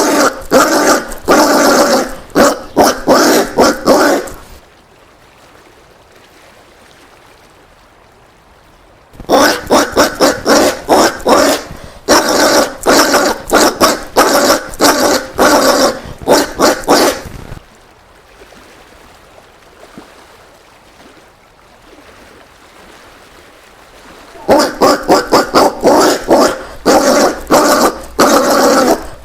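Collared peccaries calling: rapid runs of short, bark-like grunts in three bouts, with quiet pauses between them.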